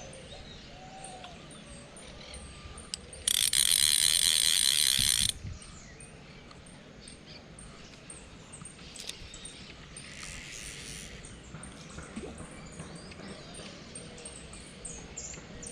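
Fishing reel's ratchet clicking rapidly in a loud, even buzz for about two seconds, starting about three seconds in.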